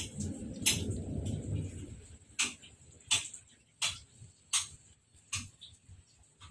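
Pet squirrel moving about in a wire cage. A short stretch of rustling and rattling is followed by sharp, short clicks at an even pace, about one every 0.7 seconds.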